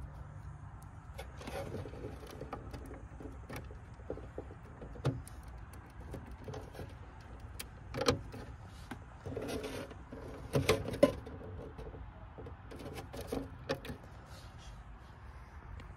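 Small plastic clicks and rustling of a capacity adapter plug and wiring being handled and pushed onto an air conditioner's indoor circuit board, with a few sharper clicks, the loudest about eleven seconds in. A steady low hum sits underneath.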